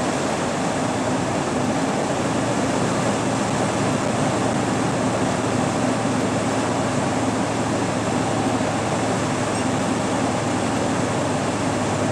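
Steady cab noise inside a loaded tractor-trailer driving at about 40 mph: an even drone of engine and road noise with a low hum underneath.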